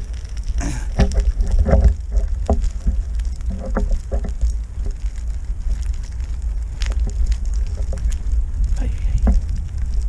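Wind and movement noise on the microphone during a ride on a 16-inch-wheel unicycle: a steady low rumble with crackling and scattered knocks.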